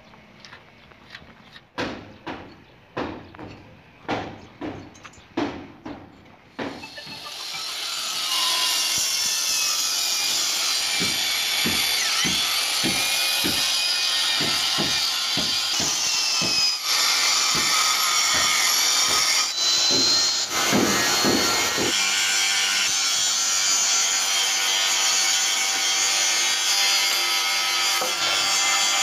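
A run of short scraping strokes of hand work on a steel chassis rail, about two a second, then, from about seven seconds in, a magnetic base drill running steadily as it bores into the steel rail.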